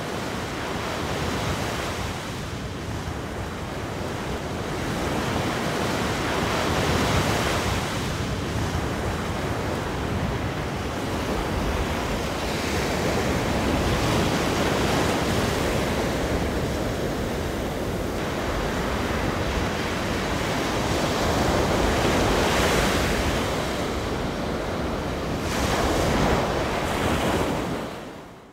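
Ocean surf: waves washing in and breaking, rising and falling in slow swells every few seconds, fading out near the end.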